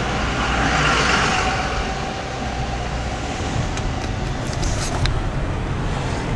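Steady road and engine noise heard inside a moving car's cabin, with a swell of rushing hiss about a second in.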